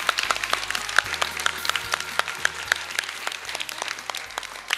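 Sustained applause from many people clapping, easing off slightly toward the end.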